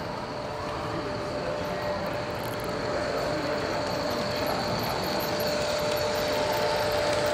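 HO scale diesel locomotives' ESU LokSound 5 sound decoders playing prime-mover sound through small onboard speakers, with a custom GE GEVO engine sound on the lead CP ES44AC. The engine sound is steady and grows gradually louder as the train approaches.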